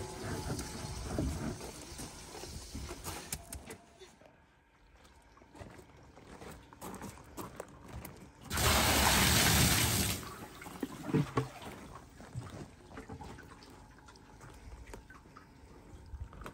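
A bucket of water poured into a wooden hot tub, a steady rush lasting about a second and a half near the middle. Scattered knocks and handling sounds come before it.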